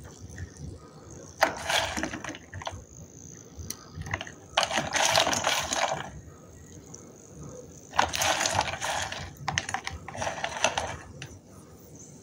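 Water-soaked lumps of Nakumatt dry clay being squeezed and crumbled between wet fingers under water, in four crackly, squelching bursts with quieter handling between them.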